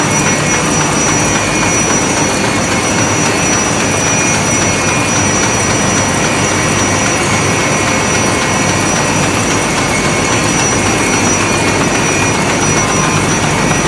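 A used 2012 Chinese-built baby diaper production line running: a loud, steady mechanical din with a thin, steady high whine over it.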